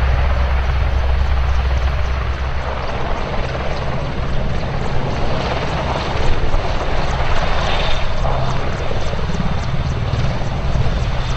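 AgustaWestland AW101 Merlin helicopter hovering low, its main rotor beating and its three turbine engines running at a steady high power, a little louder from about halfway through.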